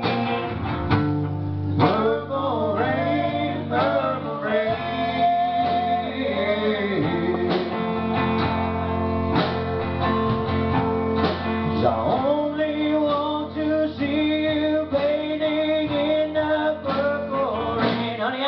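A man sings a slow song with sustained, sliding notes over a strummed acoustic guitar, played live through a small PA.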